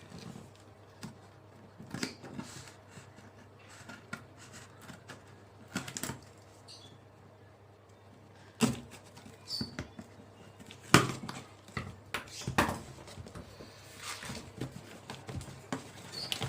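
Hands opening a taped package: irregular rustling, scraping and crackling of the packaging, with a few sharper knocks about halfway through and near the end.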